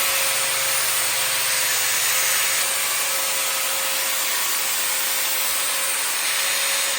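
A handheld power tool running steadily under load, a harsh hissing grind over one steady motor tone that sags slightly near the end.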